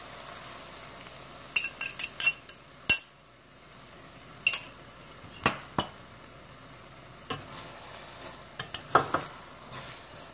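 Beaten eggs sizzling as they go into a hot stainless-steel pan of cooked chicken sausage. A quick run of sharp clinks about two seconds in, then scattered knocks as a spatula stirs the pan.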